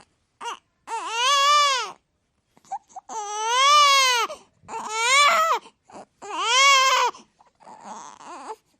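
Baby crying hard: four long wails, each rising and then falling in pitch, with short catches of breath between them, then quieter fretful fussing near the end.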